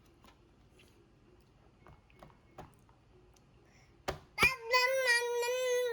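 A baby about nine months old lets out one long, high, steady vocal sound near the end, just after a couple of sharp clicks. Before it there are only a few faint clicks of eating.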